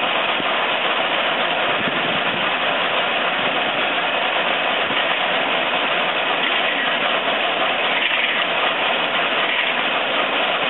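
Borewell drilling rig running: a loud, steady engine and machinery noise.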